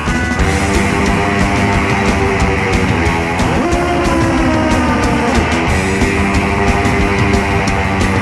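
Loud hard rock music with electric guitar over a steady drum beat.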